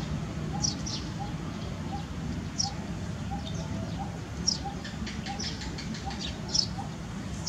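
Small birds chirping outdoors: short high chirps that slide downward, a few every second, with a softer lower note repeating about every two-thirds of a second, over a steady low background hum.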